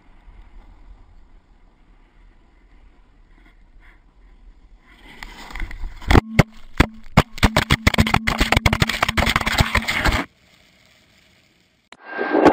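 Snowboard sliding down a groomed slope: a low, quiet rush at first, then from about five seconds in a loud run of rapid clattering and scraping over a steady hum, cutting off abruptly after about five seconds.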